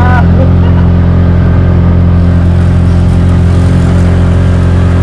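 Tuktuk's engine running at a steady speed while driving, heard from inside the open cab, with an even, unchanging drone.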